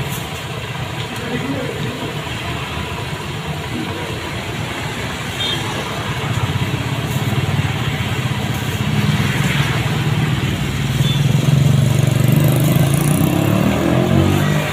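A motor vehicle engine running, growing louder from about halfway through, over a steady low rumble.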